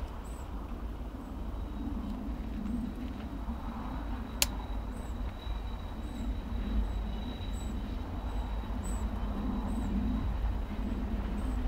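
Class 66 diesel locomotive's two-stroke V12 engine approaching out of sight, a low steady drone growing slightly louder, with wind rumbling on the microphone. A single sharp click about four and a half seconds in.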